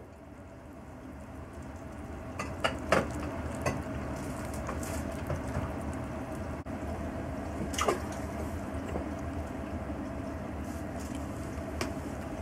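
Two cats eating grilled mackerel from plastic bowls: chewing and licking, with several sharp clicks bunched a few seconds in and another near the middle, over a steady background hum.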